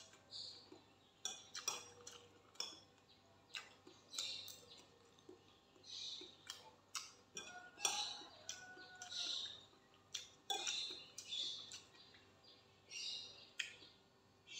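Metal spoon scraping and clinking on a ceramic plate as food is scooped up, in short irregular strokes about once a second.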